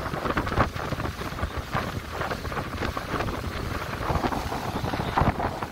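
Wind buffeting the microphone aboard a ferry: an uneven, gusty rushing with a low rumble underneath.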